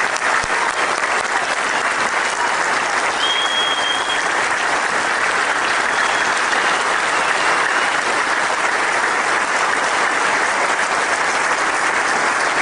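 A large crowd applauding steadily, many people clapping at once, with a short high-pitched tone about three seconds in.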